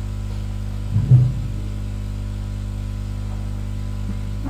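Steady low electrical hum from the microphone's sound system, with one short low sound about a second in.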